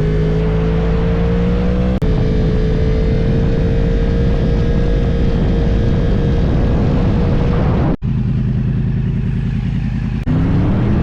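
Yamaha R1 inline-four sport bike engine pulling under way, its pitch climbing slowly with a steady rush of wind. There are brief breaks about two and eight seconds in, and near the end the engine climbs quickly in pitch as it accelerates.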